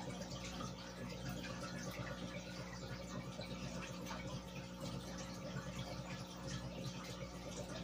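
Aquarium air-driven filtration bubbling: streams of air bubbles rising and breaking at the water surface, a steady trickling, dripping fizz, over a low steady hum.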